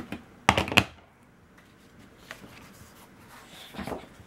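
Handling noise from a small plastic jar of heat and stick powder and craft supplies on a tabletop: two sharp knocks about half a second in, then quiet apart from a faint tick, and a few softer clatters near the end.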